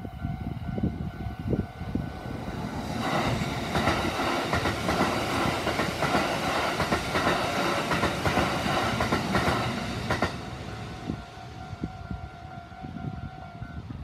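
Japanese level-crossing warning bell ringing steadily while a Kintetsu 80000 series 'Hinotori' limited-express electric train rushes past, from about three seconds in to about ten. After the train has gone the bell rings on alone, and it stops just before the end.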